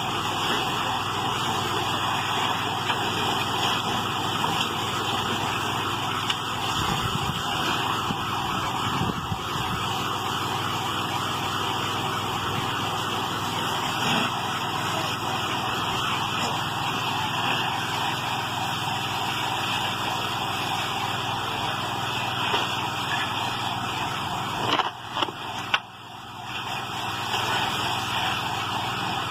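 Ambulance siren sounding continuously, with a brief drop in level about 25 seconds in.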